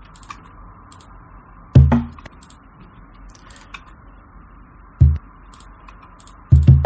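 Single sliced cajon hits played back one at a time: three deep, bass-heavy strikes a few seconds apart. Faint computer-mouse clicks fall between them as the slices are selected.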